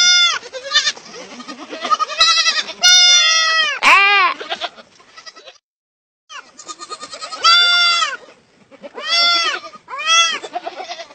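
Young lamb bleating over and over in loud, high calls, hungry for milk, with a short silence just past the middle.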